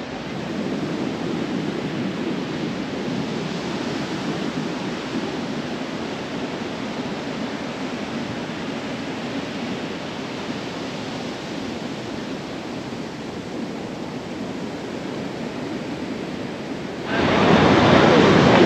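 Steady rush of wind and surf on an open beach, with wind rumbling on the microphone. About 17 s in it jumps suddenly much louder and brighter.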